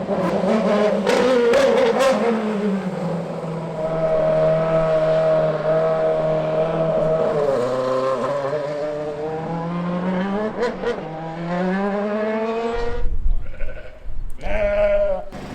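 Red Bull RB7 Formula One car's 2.4-litre V8 engine revving, its pitch climbing and dropping through gear changes. The sound breaks off briefly near the end.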